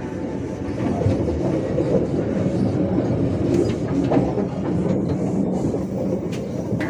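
Bandung Raya local train running on the rails: a steady noise of wheels on track with scattered clicks.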